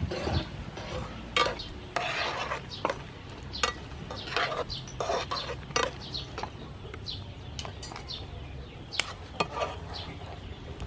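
Cooking utensils scraping and clinking against a frying pan as shrimp are stirred in boiling water, in irregular strokes with a few sharp knocks.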